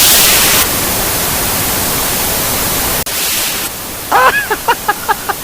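Loud, steady static hiss like white noise. It drops out for an instant about three seconds in and then resumes. Near the end a quick run of short, high, wavering chirps sounds over it.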